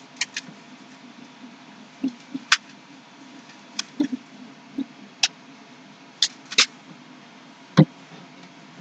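Irregular sharp clicks and taps of small hard objects being handled, about a dozen spread unevenly, with one heavier knock near the end.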